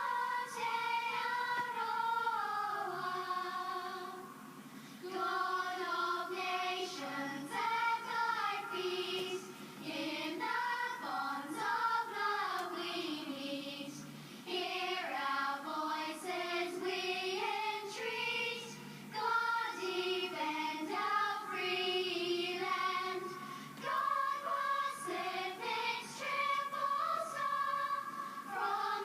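A choir of schoolgirls singing a national anthem in unison, phrase after phrase of held notes with brief pauses for breath.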